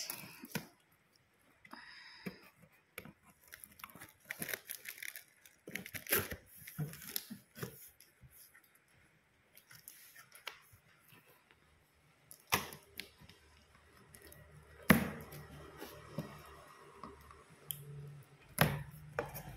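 Unpacking a cardboard printer box: plastic wrap crinkling, packing tape being cut and torn, and scattered small clicks, with three sharp snaps in the second half, the middle one the loudest.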